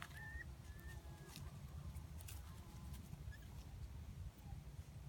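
Faint, high whimpers of young miniature schnauzer puppies: a few short whines in the first second or so, then only faint scattered ticks.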